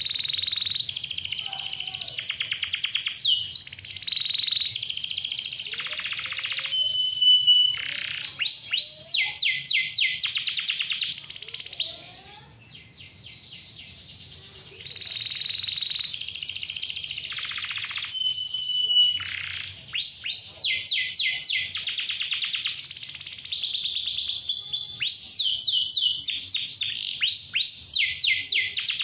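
Domestic canary singing a long, fast song of rapid trills and rolls, with a pause of a couple of seconds near the middle.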